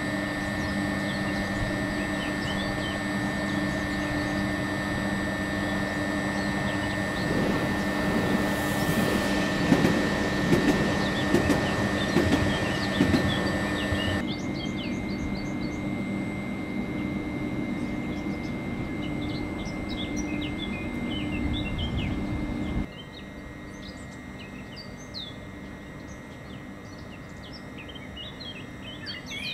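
Steady electrical hum of a parked SBB EuroCity electric train, with small birds chirping throughout. About a quarter of the way in, a louder stretch of irregular clanking and rattling lasts several seconds. The sound changes abruptly twice, about halfway and two-thirds through, and turns quieter at the second change.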